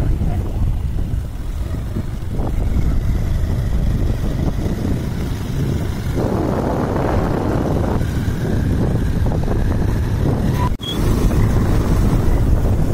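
Vehicle on the move: steady low engine and road rumble with wind noise on the microphone. The sound drops out briefly for a moment near the end.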